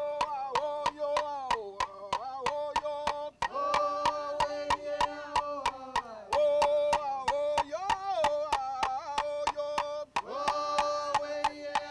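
Group of voices chanting a sustained, wavering song over a steady beat of sharp struck percussion, about four strikes a second, as in a Vanuatu custom ceremony dance. The singing breaks off briefly a little after three seconds and again near ten seconds, then resumes.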